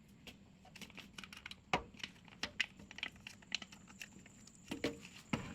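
A string of light, irregular clicks and taps, with a louder knock about 1.7 s in and a few more near the end, like small objects being handled and set down.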